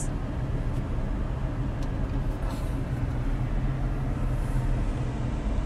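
Steady low rumble of engine and traffic noise heard from inside a car's cabin, with a faint steady hum.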